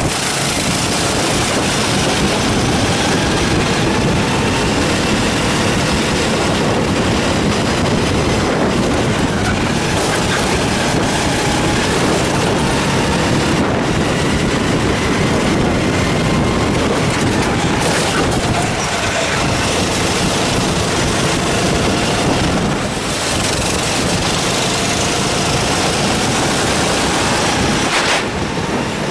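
Rental kart's four-stroke engine running at full throttle under the onboard camera, mixed with heavy wind rush over the microphone. The engine pitch climbs slowly as the kart accelerates and drops briefly twice as it lifts off for corners.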